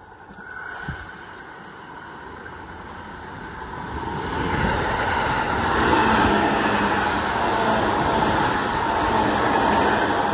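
JR West 221 series electric multiple unit passing through a station at speed without stopping: its running noise grows as it approaches, building from about four seconds in, and stays loud as the cars go by the platform.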